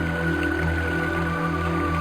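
Slow ambient meditation music: sustained synthesizer drones and long held tones, changing only slowly.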